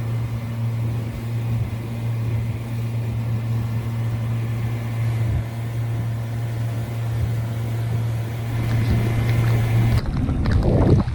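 Boat motor running at a steady low speed, an even low hum. About ten seconds in, the hum gives way abruptly to wind buffeting and handling knocks.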